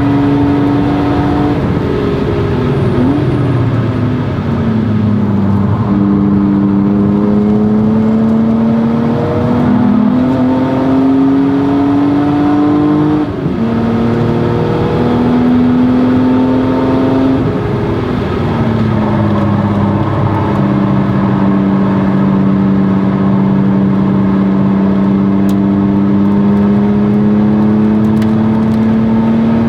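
1997 BMW E36 M3's straight-six engine under hard driving, its exhaust note climbing in pitch as it accelerates and dropping suddenly at gear changes, about four or five times. It ends with a long, slow rise in pitch.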